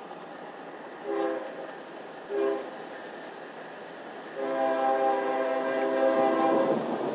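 Train horn sounding two short blasts and then one long blast of about two and a half seconds, each a chord of several steady notes, over a steady background hiss.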